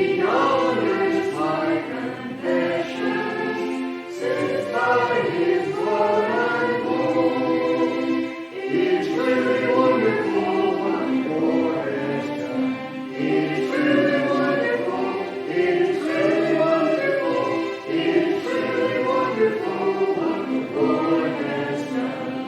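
Church congregation singing a hymn together, many voices holding long notes in a slow, steady melody.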